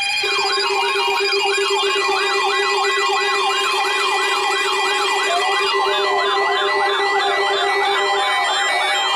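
Electronic siren-style alert tones sounding for an emergency alert test: several overlapping fast up-and-down sweeps over a steady low tone. A second, slower sweep joins about halfway through, and the low tone stops near the end.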